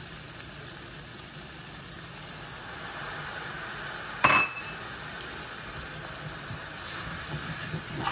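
Pasta water sizzling in a hot pan over crusted bacon and pasta, deglazing the bottom, as it is stirred with metal tongs. About four seconds in, the tongs strike the cookware in one sharp, ringing metal clink, with a few lighter clinks near the end.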